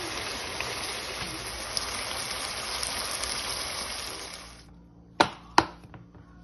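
Spicy stir-fried pork (jeyuk-bokkeum) sizzling steadily in a hot pan as it is stirred. The sizzle fades away about four and a half seconds in, and two sharp clicks follow about half a second apart.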